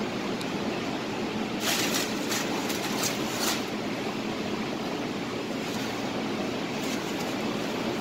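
Steady running noise of a commercial kitchen exhaust hood fan, with a few short rustles or scrapes about two and three and a half seconds in.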